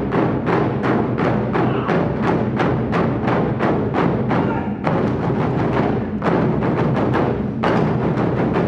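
Japanese taiko drum ensemble playing: many barrel drums struck together in a steady fast rhythm of about four strokes a second, the strokes ringing into one another. The strokes thin out briefly around the middle and come closer together near the end.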